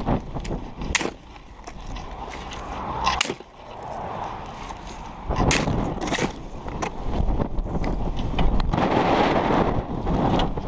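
Scattered knocks and clatter of wooden boards and gear being handled during a tow recovery, over a steady low rumble like wind on the microphone. The noise grows denser and louder from about halfway through.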